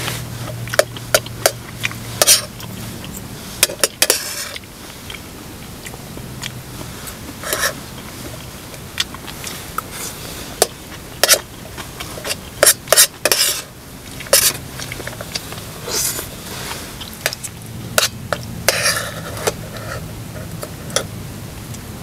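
Metal utensils clinking and scraping against camp cookware: many short, sharp clinks at an uneven pace, with a few longer scrapes like stirring.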